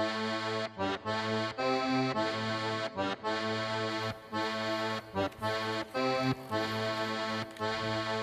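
Background accordion music: held chords under a melody, with short breaks between phrases.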